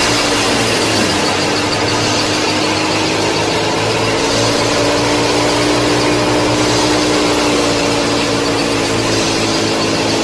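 Small electric motor running steadily with a whine that drifts slightly in pitch.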